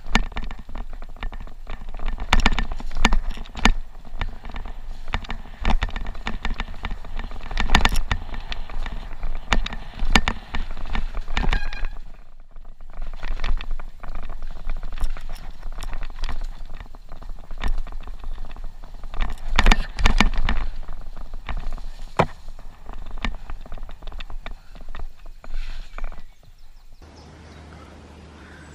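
Mountain bike rattling and clattering over a rough dirt trail, heard from a camera riding on the bike or rider: a dense run of sharp knocks over a low rumble, with a brief lull about twelve seconds in. Near the end it drops to a quieter steady background.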